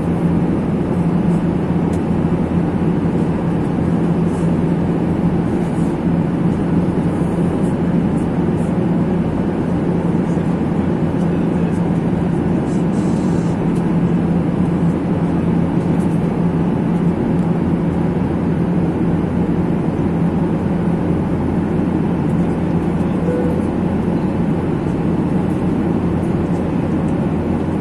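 Boeing 737 cabin noise in flight while climbing: an even, unbroken rush of engine and airflow noise with a low steady hum beneath it.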